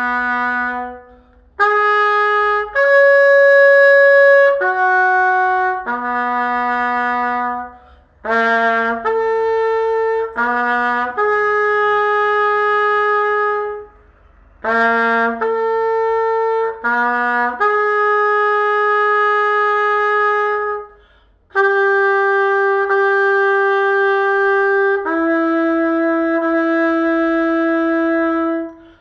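Solo trumpet playing slow, separate sustained notes of a contemporary classical piece, moving between low and middle-register pitches with short rests between phrases; the last two notes are held longest.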